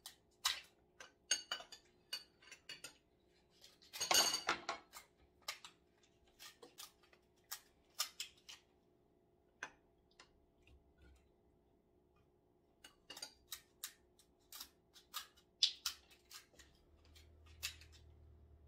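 Kitchen scissors snipping and cracking through king crab shell, with scattered clicks of spoons and forks on plates and bowls. The loudest is a longer rasping burst about four seconds in.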